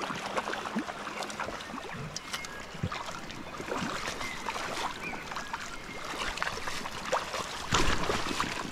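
River water splashing and sloshing around a hooked trout as it is played close and netted in the shallows, with many short splashes and a louder splash near the end.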